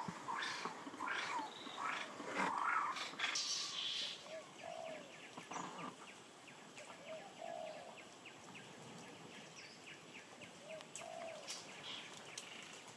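Animal calls: a dense run of loud calls for the first few seconds, then a soft rising-and-falling call repeated three times, a few seconds apart, over a fast, even ticking.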